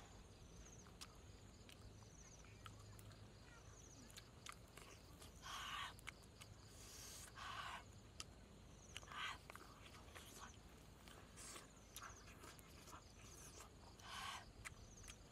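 Mouth sounds of eating cooked fish by hand: several short smacking, chewing noises spaced a couple of seconds apart over near silence.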